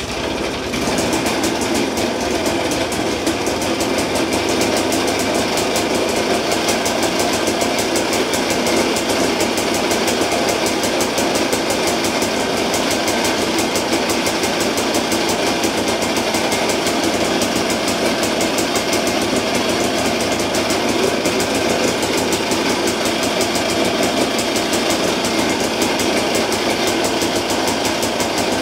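1960s Homelite two-stroke generator engine catching as soon as the starter rope is pulled, then running steadily with a fast, even firing beat. It starts and runs easily.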